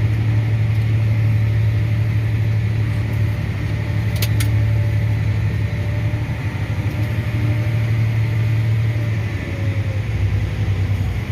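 Farm machinery's diesel engine running steadily, a low constant drone, with a couple of sharp clicks about four seconds in.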